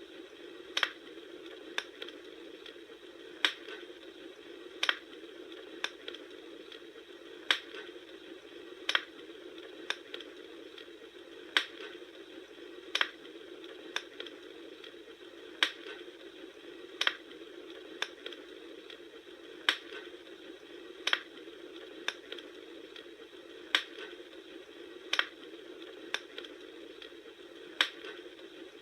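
Bonfire crackling: sharp wood pops coming at an even pace, about one every second and a half, over a steady low hiss of flame.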